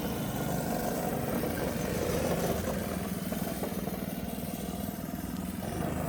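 Go-kart engine running steadily at a fairly even pitch.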